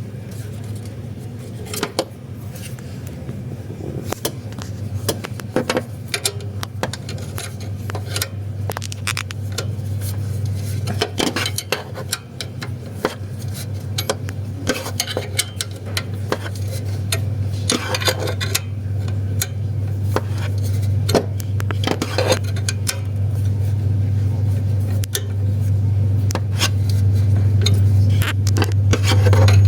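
Irregular metallic clicks and clinks of hand tools working on a Hyundai Tucson's alternator belt tensioner and bolts, as the belt is tensioned. Under them runs a steady low hum that grows louder towards the end.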